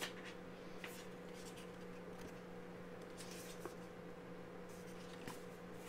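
Faint rustling of a paper booklet being opened and handled, a few soft scrapes over a steady low hum.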